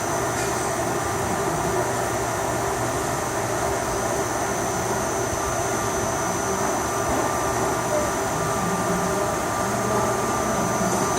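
CNC machine (HS-1000) running, a steady mechanical hum of motors and drives with a constant high-pitched whine over it.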